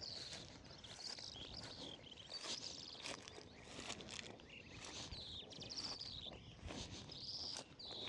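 Footsteps through steppe grass, with birds singing continuously in the background.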